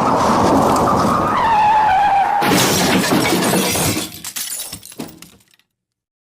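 Car crash sound effect: tyres screech with a high tone sliding slowly down, then a sudden loud crash about two and a half seconds in, followed by breaking glass and clattering debris that die away over about three seconds.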